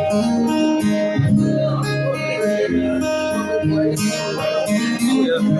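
Acoustic guitar strummed, chords changing about every second: the instrumental close of a song after the last sung line.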